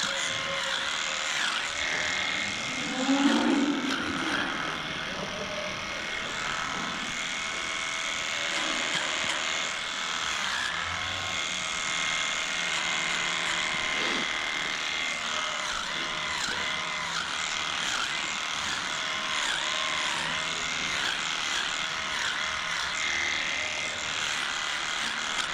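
Dairy barn ambience: Holstein cattle calling over a steady mechanical hum, with one louder, low call about three seconds in.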